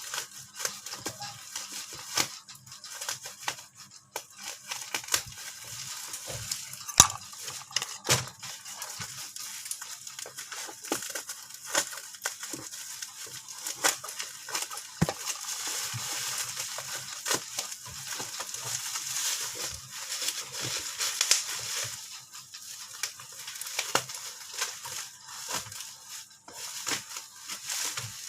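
Packaging being handled and opened by hand: continual crinkling and crackling with many sharp clicks and taps.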